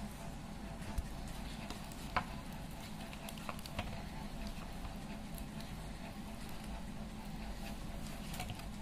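A hand mixing chicken legs in a thick, wet masala batter in a steel bowl: faint soft patting and stirring sounds with a few light clicks, over a steady low hum.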